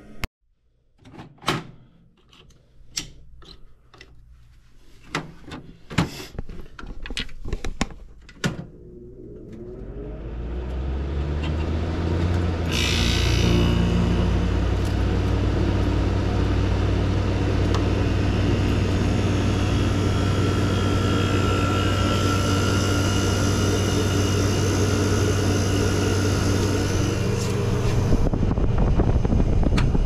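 Vintage window air conditioner starting up: a string of clicks and knocks, then its motor hums up over a few seconds and the unit settles into a steady run with a low hum and a rush of air.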